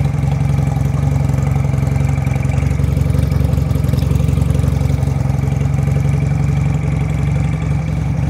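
Benelli Patagonian Eagle 250's V-twin engine idling steadily, a constant low drone with no revving.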